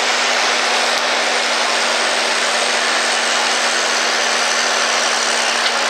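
Tractor engines running steadily at a tractor pull, a dense even engine noise with a constant low tone underneath.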